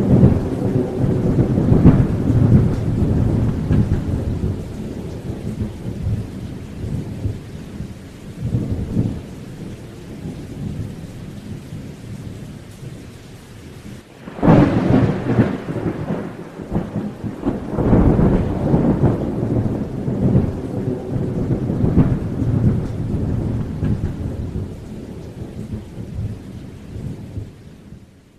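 Thunderstorm: rolling thunder over steady rain. About halfway through a sudden loud thunderclap starts a new round of rumbles, which die away near the end.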